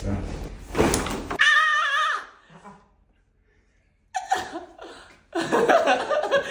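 A thump during a side-lying chiropractic back adjustment, followed at once by the man's high, wavering cry lasting under a second. After a short silence he laughs.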